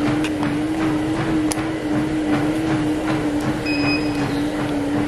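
Treadmill in use: a steady motor hum with the regular thud of a runner's footfalls on the belt, about three a second.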